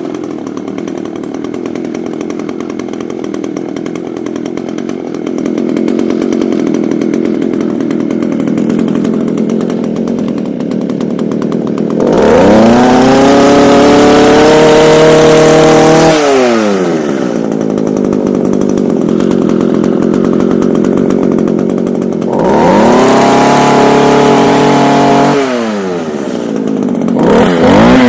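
Echo HC2000 hedge trimmer's small two-stroke engine idling, then revved up to high speed twice for a few seconds each and let back down to idle, with a short blip of the throttle near the end. The engine is running again after a new primer bulb was fitted.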